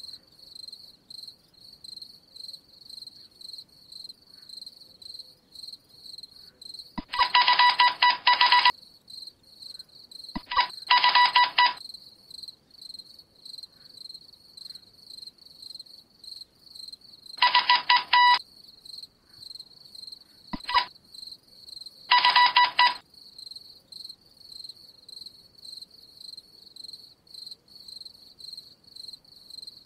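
An electric buzzer sounds in five harsh bursts of uneven length, from a blip to nearly two seconds, between about seven and twenty-three seconds in. Some of the bursts start with a click. Under them a high, thin chirping pulse repeats about twice a second.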